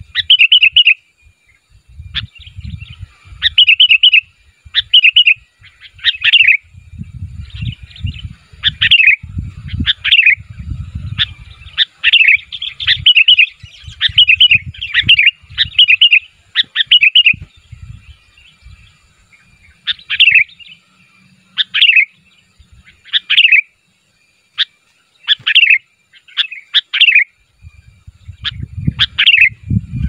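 Sooty-headed bulbul calling: short phrases of quick whistled notes, repeated about once a second. A low rumble comes and goes underneath.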